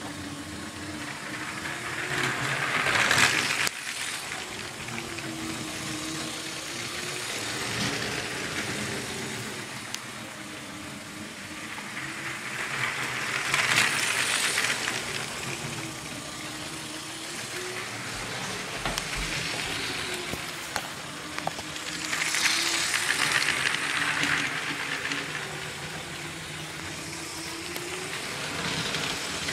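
Motorized LEGO train running on plastic track: a steady electric motor hum that wavers gently in pitch, under a clicking rattle of wheels on the track. The rattle swells loudly three times, about three, fourteen and twenty-three seconds in.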